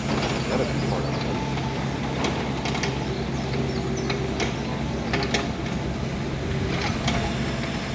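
Truck-mounted crane's engine running steadily while it holds a foundation wall panel on its rigging, with scattered light clicks and clinks.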